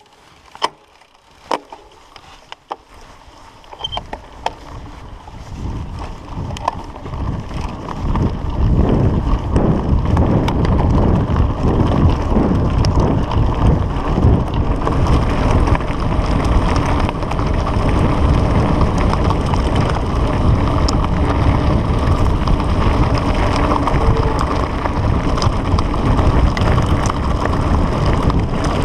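Mountain bike rolling downhill on a gravel track: tyres rumbling and rattling over loose stones with wind buffeting the microphone. It builds over the first several seconds as the bike gathers speed, then stays loud and steady. A few sharp clicks come in the first couple of seconds.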